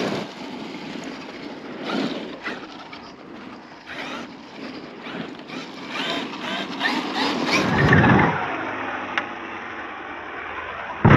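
Traxxas X-Maxx electric RC monster truck running over dirt jumps, its brushless motor whining up and down in pitch as it accelerates and lets off, with tyres scrabbling on the dirt. Near the end a single hard slap as the truck lands a jump, the plastic chassis hitting the ground.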